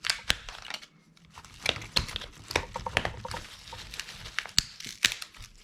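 Plastic housing of an old Samsung mobile phone being forced open by hand, with a run of sharp clicks and crackles as the case and its clips crack and give way.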